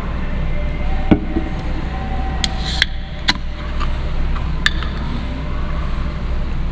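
Scattered clicks and knocks from handling a takeaway meal and a drink, over a steady low hum, with a brief hiss about two and a half seconds in.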